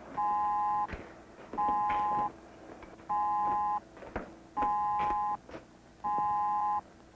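Two-note electronic call signal beeping in repeated pulses of under a second, about one every second and a half, signalling an incoming call on a communications console. Footsteps and light knocks fall in the gaps between the beeps.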